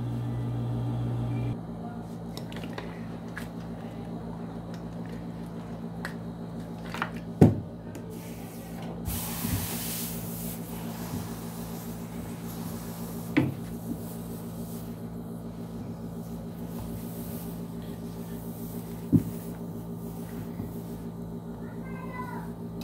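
Steam iron pressing fabric: a hiss of steam about nine seconds in lasting a couple of seconds, and three sharp knocks spread through, over a steady low hum.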